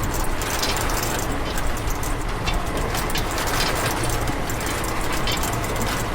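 A small motor and gears running, with a steady, dense clatter of clicks over a low hum.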